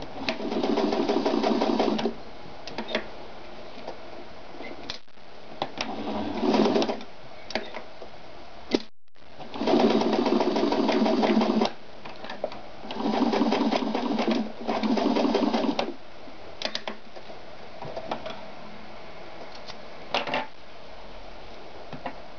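Ideal 730 sewing machine running in five short bursts of stitching, with single sharp clicks in the pauses between them.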